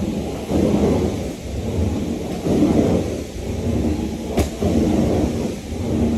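Carpet-cleaning equipment worked over carpet in repeated strokes: a rumbling surge about every second, with a sharp click about four seconds in.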